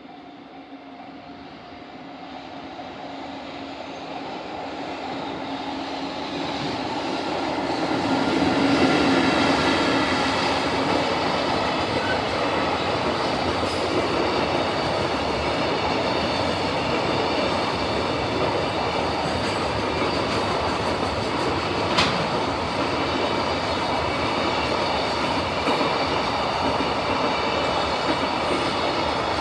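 A long freight train of container flatcars hauled by an EF65 electric locomotive passing close by: the rolling noise grows over the first several seconds to a peak as the locomotive goes by, then the wagons roll past steadily for about twenty seconds. A single sharp knock comes about 22 seconds in.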